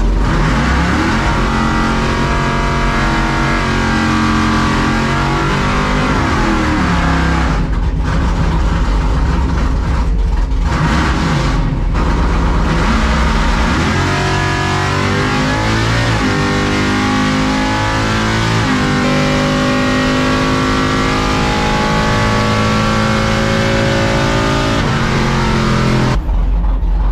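Drag-racing Chevrolet C10 pickup's roughly 700 hp engine heard from inside the cab, revving and then running hard down the strip. Its pitch climbs and drops back several times at the gear changes, and the sound cuts off abruptly near the end.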